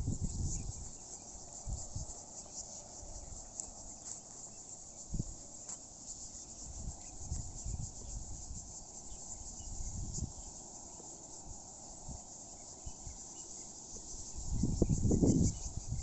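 Insects shrilling steadily in a high, even drone. Irregular low rumbles on the microphone come and go and are loudest near the end.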